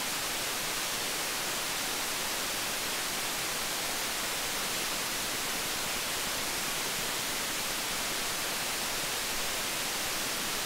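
Steady, even hiss of an MC33178 op amp's own noise, amplified by a gain-of-101 test circuit, which reads about −78 dB on the noise test set.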